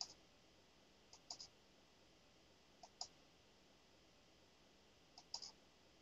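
Faint computer mouse clicks in four short clusters, each a soft click followed by one to three sharper ones, over near silence.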